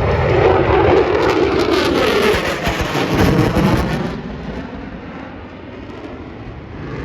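F-22 Raptor fighter jet's twin turbofan engines roaring past overhead, the pitch sliding down as it goes by, then fading off about four seconds in.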